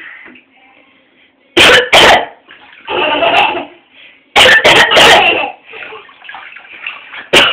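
A woman coughing in harsh bursts: a pair about a second and a half in, a run of three around four and a half seconds, and another near the end.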